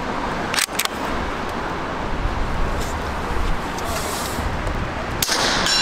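Bolt of a .22LR rifle clicking as it is closed under a second in, then a single sharp rifle shot a little over five seconds in, over a steady low rumble.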